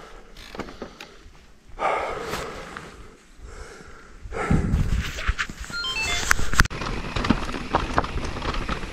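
Electric mountain bike rattling and clattering over loose rocks on a steep trail descent, with sharp knocks from the wheels and frame. It is quieter at first and gets louder about halfway through.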